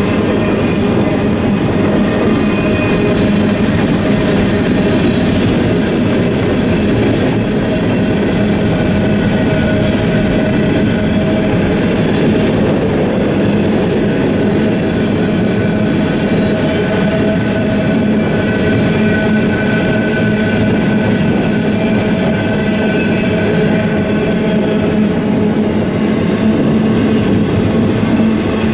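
Freight train cars rolling past a railroad crossing: a steady, loud rumble of steel wheels on the rails that continues without a break.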